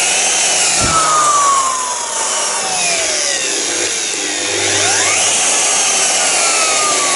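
Erbauer 2100 W electric plunge router switched on and running free as a test, a loud steady motor whine whose pitch slides down and back up several times.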